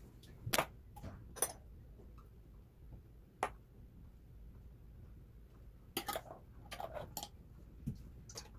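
Scattered light clicks and clinks of tableware, about ten, unevenly spaced and bunched near the end: a metal spoon scooping jam from a glass jar and tapping against a small ceramic dish.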